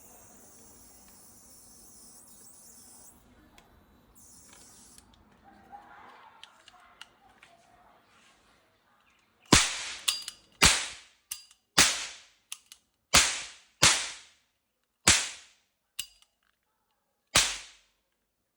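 A string of about ten sharp gunshot bangs at irregular spacing, starting about halfway through, each ringing out briefly before the next. Before them a faint high hiss.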